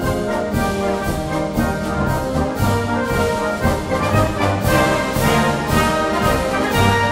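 Orchestral music led by brass, with sustained chords.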